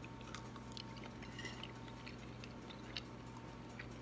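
A man chewing a bite of cooked mule deer kidney: faint, scattered wet mouth clicks over a steady low hum.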